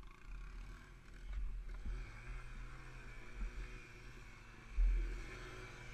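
Motorcycle engines running at idle, with a steady low hum setting in about two seconds in. Low rumbling thumps on the microphone come and go, the loudest just before the end.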